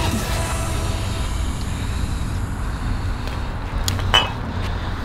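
Low, steady outdoor rumble of distant traffic, with a single short metallic clink about four seconds in.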